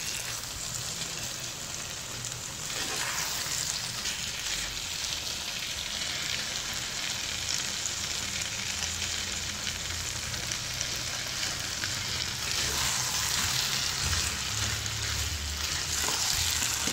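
Chicken and vegetables in sauce sizzling steadily in a nonstick frying pan over a high flame, with a silicone spatula stirring and scraping as boiled spaghetti is added and tossed in. The sizzle grows a little stronger about three seconds in.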